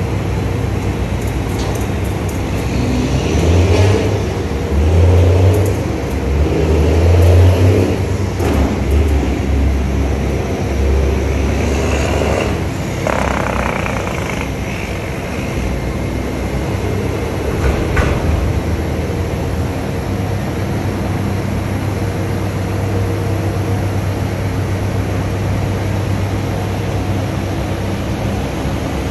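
Scania P94 truck's diesel engine running steadily while it drives the hydraulic pump of its Fassi F380 loader crane, revving up for several seconds in the first third as the boom is folded. A few short knocks come around the middle.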